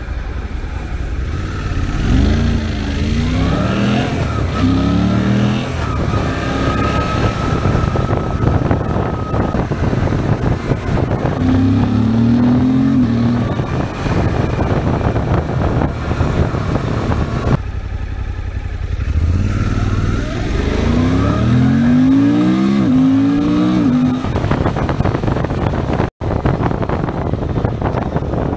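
Suzuki V-Strom 800 SE's 776 cc parallel-twin engine, its air box modified, pulling hard through the gears. Its pitch climbs and then drops at each upshift, several times over, with a steady rush of wind noise throughout.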